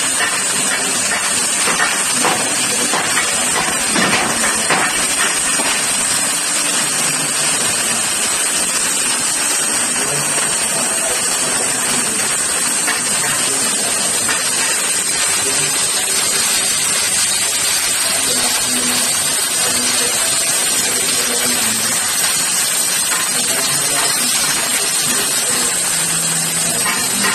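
Oxy-fuel cutting torch on a portable track-mounted cutting machine, hissing steadily as its flame and oxygen jet cut through mild steel plate.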